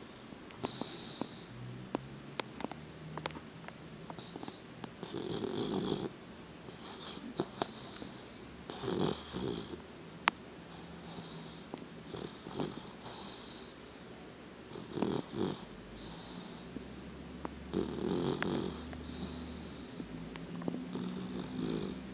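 A twelve-week-old bulldog–pitbull puppy snoring and snuffling in its sleep while dreaming, with irregular breaths a few seconds apart and scattered small clicks.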